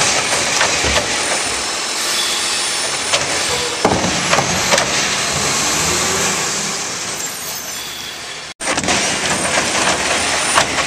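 Automated side-loader garbage truck working: its diesel engine and hydraulic arm run steadily as the arm tips a trash cart into the hopper and sets it down, with a few sharp knocks of the cart. The sound cuts off briefly near the end and resumes with the truck's arm lifting another cart.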